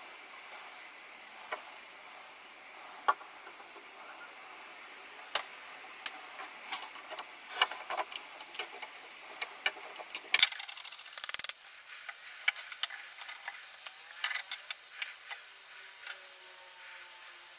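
Parts of a Stanley Bailey No.5 cast-iron hand plane clicking, knocking and scraping as it is taken apart with a screwdriver on the workbench. The clicks come irregularly, busiest in the middle, with a short rasping scrape just past halfway.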